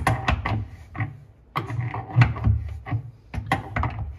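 Adjustable wrench working a brass flare fitting tight on a gas shut-off valve: a string of irregular clicks and knocks as the jaws seat on the nut and the fitting turns.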